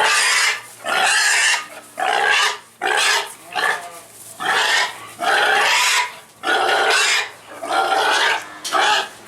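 A farm animal calling loudly over and over: a string of harsh cries, about one a second, each lasting half a second to a second.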